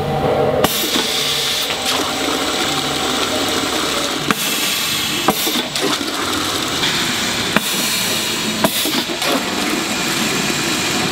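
CPM 500 pneumatic piston liquid filler running: a steady rushing hiss of air and liquid, broken by sharp clicks of its pneumatic valves and cylinders every second or few.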